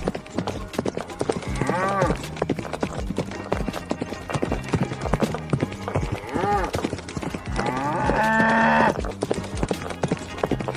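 Cattle stampede: a rapid jumble of hoofbeats throughout, with cows mooing three times, the last call the longest and loudest.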